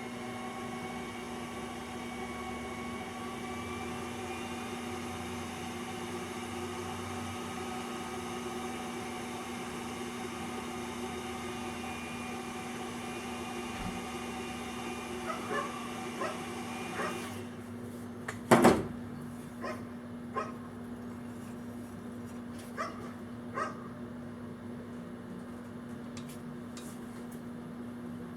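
Bolt Buster handheld induction heater whining with a steady chord of tones that creep slightly up in pitch as it heats the screwdriver's steel shaft, cutting off about 17 seconds in while a low hum carries on. Then one loud metallic knock and several lighter clicks and knocks.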